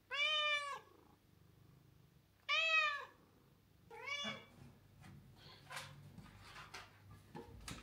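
Domestic cat meowing three times, begging for treats: two long meows, then a shorter one about four seconds in. Soft rustling and clicks follow in the second half.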